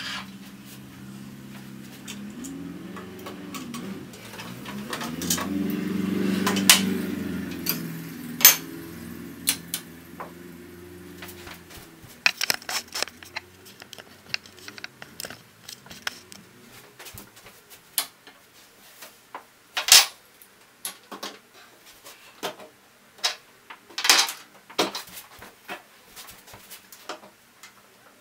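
Metal clinks, clicks and knocks of tools and parts being handled while an opened Brother PR-620 embroidery machine is put back together, with sharper knocks scattered through the second half. A low steady hum runs through the first part, swelling about six seconds in and fading out about halfway through.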